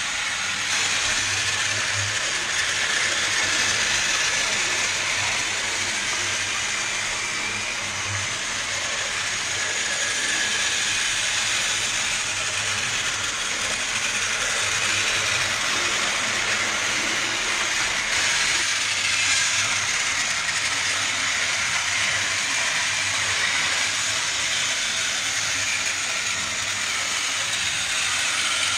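Motorized toy trains running on plastic track: a steady whir of small electric motors and plastic wheels on the track, without a break.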